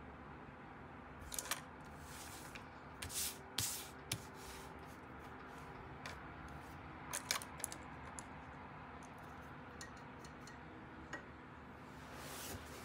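Paintbrushes and a square of paper being handled on a cutting mat: a scatter of light clicks, taps and short rubbing sounds, with a brief swish near the end.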